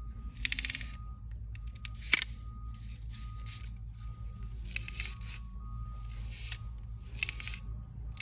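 Bungee line pulled back and forth through the H-track's pulleys: a series of about eight short rasping slides, with one sharp click a little over two seconds in.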